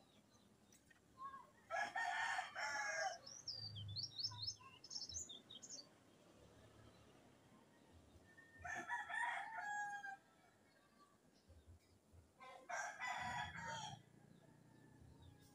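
A rooster crowing three times, each crow a little over a second long, the calls several seconds apart. Brief high bird chirps follow the first crow.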